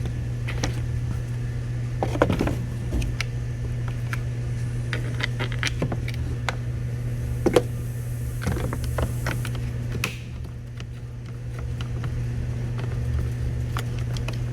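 Scattered clicks and light knocks of plastic parts being handled as a mounting bracket is clipped onto a car headlight, over a steady low hum.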